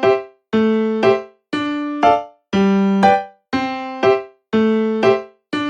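Background music: a simple electric-piano tune in even phrases, a held note followed by a short one about once a second.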